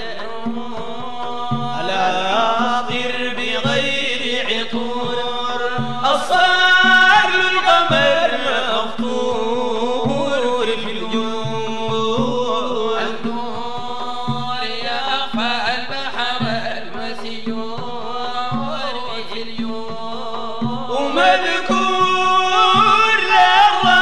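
Sudanese Sufi madeeh: a group of men chanting a praise song to the Prophet in unison over a steady beat.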